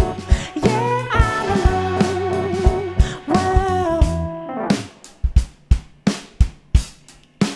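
Live band playing psychedelic soul: held, wavering chords over bass and drums, then about four and a half seconds in the band drops out and the drum kit plays alone with separate kick and snare hits.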